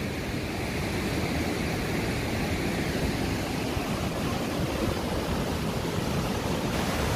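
Steady rushing of a waterfall on a river: an even wash of water noise with no breaks.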